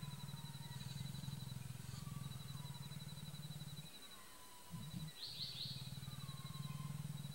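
A leopard growling in a low, continuous rumble that breaks off about four seconds in and then resumes. Behind it runs a high pulsing trill, with short falling whistles every second or two.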